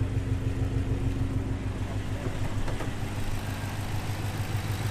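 Ford Shelby GT350's flat-plane-crank 5.2-litre V8 idling steadily through freshly fitted American Racing long-tube headers and full exhaust.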